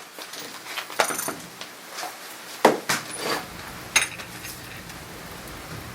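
Several sharp metallic clinks and knocks, spaced a second or so apart, as steel tools and the just-freed rear wheel hub assembly are handled and set down.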